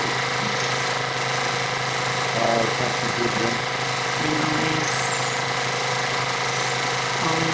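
Home-movie film projector running with a steady mechanical whir, its pitch and level unchanging.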